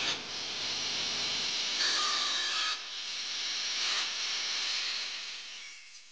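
Electric angle grinder cutting into a car's sheet-steel body panel: a steady high-pitched hiss with a brief whine about two seconds in, dropping away near the end.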